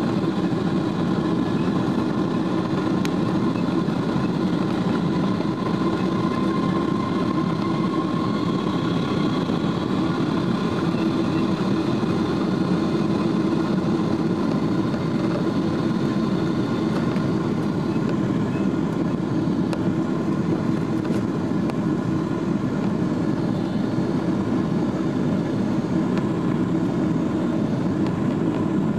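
Boeing 777-200's Rolls-Royce Trent turbofans at takeoff power, heard from inside the cabin over the wing during the takeoff roll and climb-out. It is a steady roar, and a high whine within it rises a little about eight seconds in.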